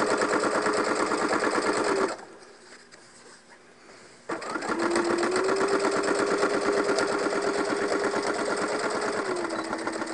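Electric sewing machine stitching a seam, the needle going in a fast, even rhythm over the motor's hum. It stops about two seconds in and starts again with a click about two seconds later. Near the end it slows a little.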